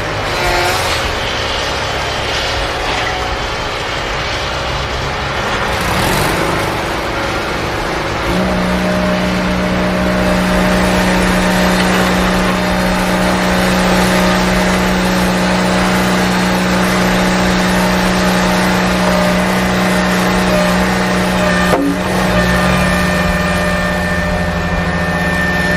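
Steady engine-like running hum of a toy vehicle, shifting up in pitch about six and eight seconds in and then holding steady, with a single short click a few seconds before the end.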